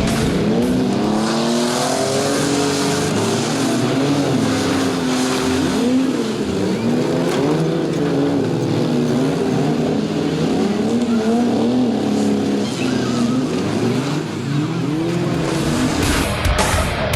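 Several demolition derby cars' engines revving up and down at once, their pitches rising and falling over one another.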